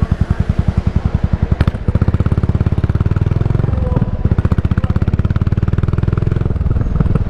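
Yamaha SR400's single-cylinder four-stroke engine through a Goods Tapered Cone slip-on muffler, its exhaust beating out evenly spaced firing pulses at low revs. A click and a brief dip come just before two seconds in. After that the pulses come faster and fuller as the revs rise, easing off near the end.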